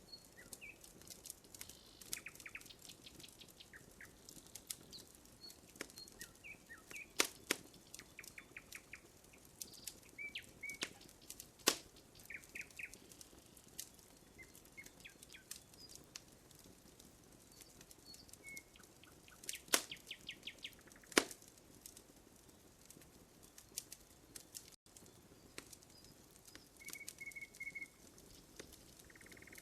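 Campfire of burning wood crackling, with irregular sharp pops, a few of them loud, and small birds chirping in short quick series in the background.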